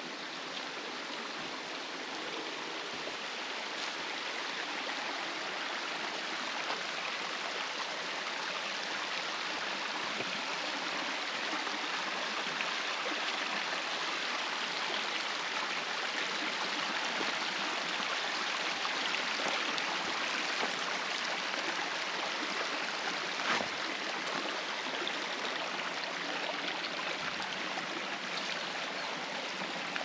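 Mountain stream rushing over rocks, a steady wash of water that grows a little louder over the first several seconds. A few faint ticks sound over it.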